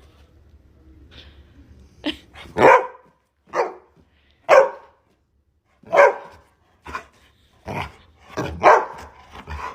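A dog barking, short single barks about once a second, starting about two seconds in.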